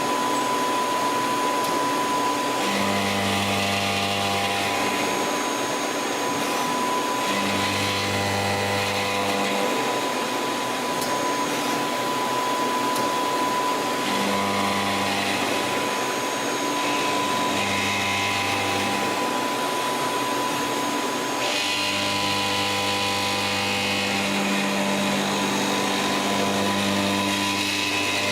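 CNC lathe running in a machine shop: a steady mechanical whir with a constant high whine, and a low hum that comes in for about two seconds at a time, several times.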